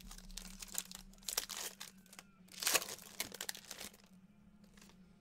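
Foil trading-card pack wrapper crinkling and tearing as it is handled and opened, in irregular crackles that are loudest about one and a half and nearly three seconds in.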